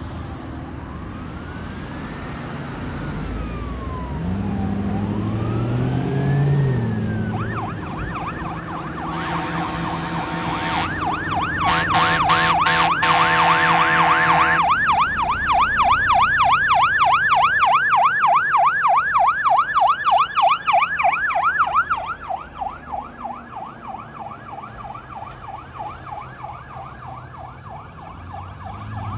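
Fire engine's siren sweeping slowly up and down in a wail, then switching to a rapid yelp. For a few seconds in the middle, loud steady horn blasts sound over it. The siren is loudest around the middle and fades in the last third, with a slow wail starting again at the end.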